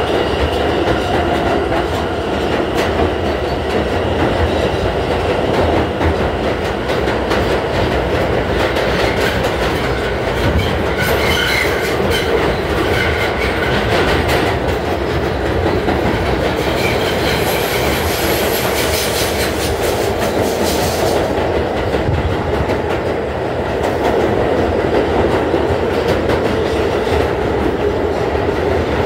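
R160A subway car running at speed through a tunnel, heard from inside the car: a steady loud rumble of wheels on rail with the clickety-clack of rail joints. High thin wheel squeals come in about a third of the way in and again past the middle.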